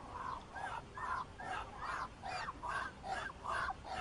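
Domestic waterfowl calling over and over, harsh honking calls coming about two to three a second in a steady run.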